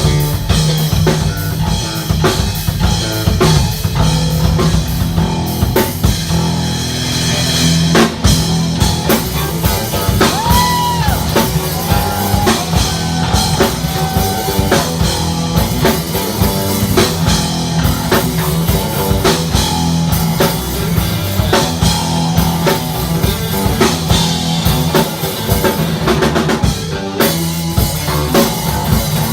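Live band playing a funk-rock song, with drum kit and electric guitar over a steady bass line.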